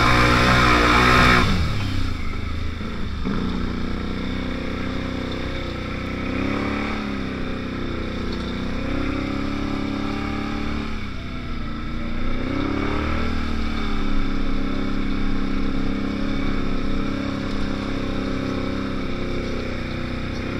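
ATV engine running close by. A louder high-revving stretch drops off sharply about a second and a half in. After that it idles, the revs sagging and picking up again a few times.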